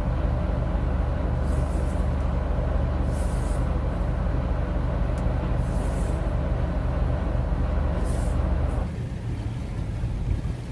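Rice cargo boat's engine running steadily with a deep hum, with short hissing sounds every couple of seconds. The sound drops and thins about nine seconds in.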